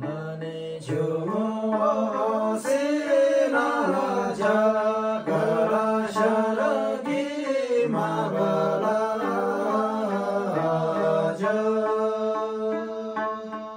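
Several men singing a Tamang selo folk song together to a plucked tungna lute. The voices come in about a second in and stop a couple of seconds before the end, leaving the lute's repeated plucked notes alone.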